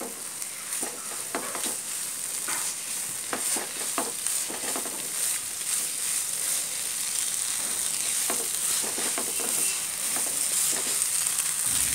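Clam meat roast sizzling in coconut oil in a nonstick frying pan while a wooden spatula stirs it: a steady high hiss with scattered scrapes and taps of the spatula against the pan.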